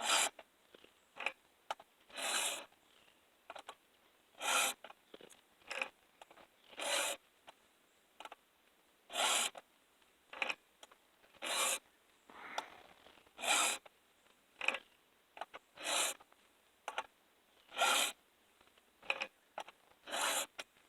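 Round chainsaw file drawn across chainsaw chain cutters, one rasping stroke per cutter about every two seconds. Short clicks come between the strokes as the chain is pushed round to the next cutter.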